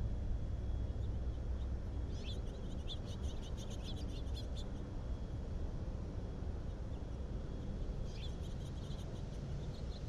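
Small songbirds twittering in rapid runs of high chirps, a longer run about two seconds in and a shorter one near the end, over a steady low rumble.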